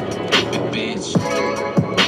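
Background music with a steady beat: deep bass-drum hits that drop in pitch, sharp snare-like hits and a sustained backing.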